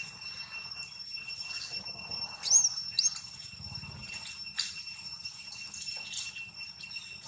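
Two short, sharp, high-pitched squeaks from a long-tailed macaque, about two and a half and three seconds in, over a steady high-pitched whine.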